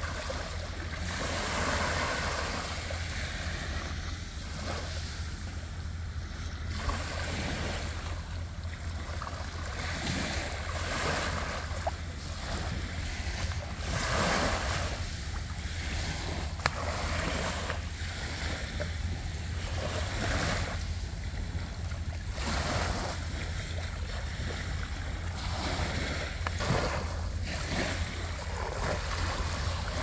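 Small sea waves breaking and washing up on a sandy shore, the surf swelling and easing every few seconds, with a steady low rumble of wind on the microphone.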